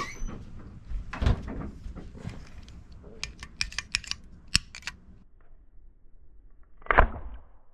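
A scatter of sharp clicks and knocks, a quick run of clicks in the middle, and one louder knock near the end.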